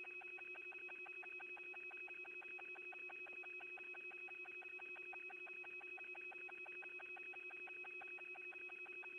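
Faint, steady electronic tones, one low and one high, with a rapid, even pulsing: background hum of the mission communications audio feed between transmissions.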